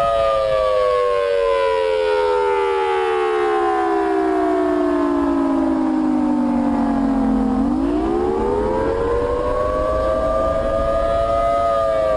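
Civil defense siren sounding several tones at once, slowly winding down in pitch for about seven seconds, then winding back up and starting to fall again near the end.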